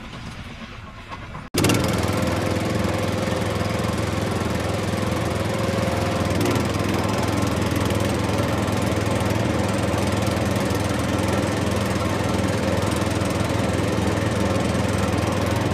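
A quieter stretch cut off about a second and a half in, then an engine running steadily at a constant speed with a low, even drone.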